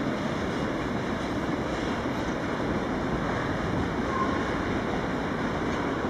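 Freight train of tank wagons rolling past on the rails, a steady rumble mixed with wind noise on the microphone. A brief faint squeal about four seconds in.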